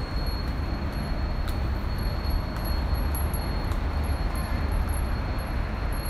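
Japanese furin wind bells ringing, a high sustained ring that swells and fades with light taps of the clapper, over a steady low rumble.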